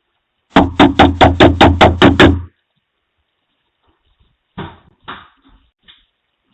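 Frantic pounding on a door: about nine heavy, evenly spaced blows in two seconds, very loud and distorted, then two single knocks a couple of seconds later.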